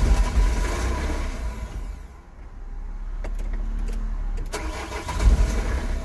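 Starter cranking the 1.9 common-rail diesel engine of a 2003 Vauxhall Vivaro/Nissan Primastar van. It fires but won't keep running: it starts and stalls straight away. There is a loud spell at first, a dip about two seconds in, and a second loud spell near the end.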